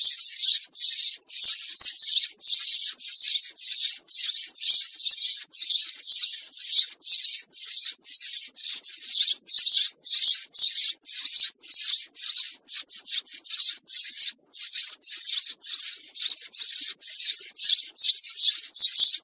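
House sparrow chirping: a steady, rapid run of short high chirps, about three a second, with only brief breaks.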